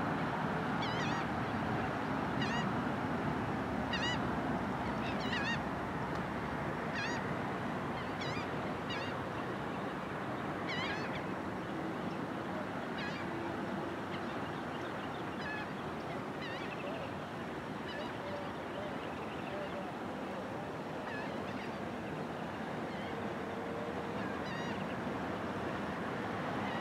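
Birds calling with short, high chirping calls every second or two, fewer and fainter in the second half, over a steady rush of small waves on the water.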